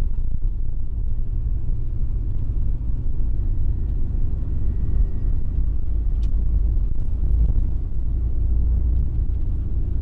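Steady low rumble of a 22-foot motorhome driving on the road, engine and tyre noise heard from inside the cab.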